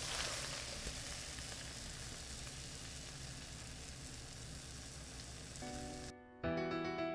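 Mackerel and onion stir-fry sizzling in a frying pan, dying down slowly with the heat just turned off, after a light tap at the start. About six seconds in the sizzle cuts out and piano music comes in.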